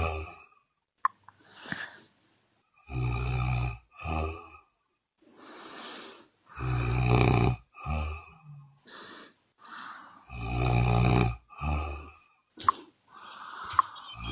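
A woman snoring loudly. There are three long snores about four seconds apart, each followed by a short second snore, with softer breaths between, and two sharp clicks near the end.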